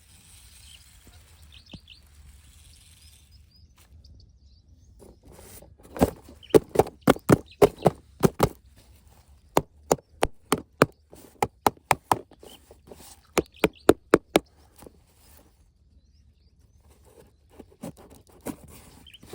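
A run of sharp, separate clicks and knocks, about two to three a second, starting about six seconds in and stopping about halfway through the second half, with a few more near the end, over a faint steady hum.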